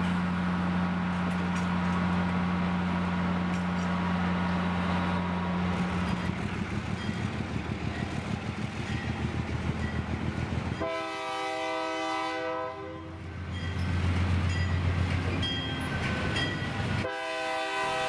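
A locomotive's horn sounds a blast of about two seconds, then starts another near the end. Before it the locomotive's engine runs with a steady low drone that turns into a rapid rhythmic pulsing.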